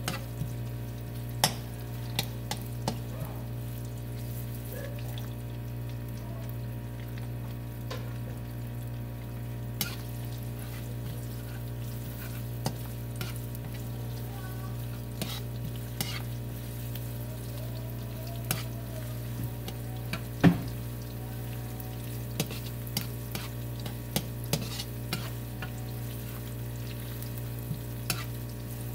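Sliced onions and garlic sizzling in oil in a nonstick wok as they are sautéed toward brown, stirred with a slotted spatula that scrapes and taps the pan in frequent short clicks, one sharper knock about two-thirds of the way through. A steady low hum runs underneath.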